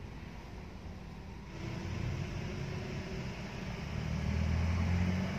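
Car engine and road rumble heard from inside the cabin, growing louder about a second and a half in and loudest near the end.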